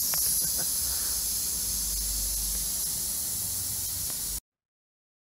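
Air hissing steadily out of a punctured motorcycle tyre through the hole left by a pulled-out split pin; the hiss cuts off abruptly near the end.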